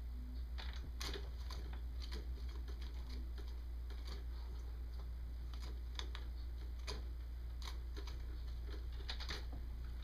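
A cat batting, clawing and biting a hanging straw-and-feather toy bird: irregular light clicks and rustles, thicker near the end, over a steady low hum.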